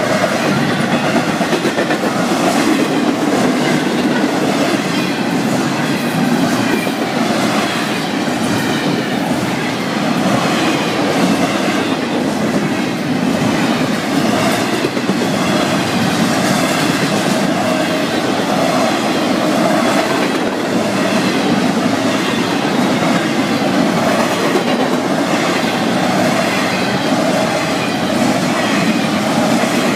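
Freight train's double-stack intermodal well cars rolling past close by: a steady, loud rumble of steel wheels on the rails, with the wheels clattering over the rail joints.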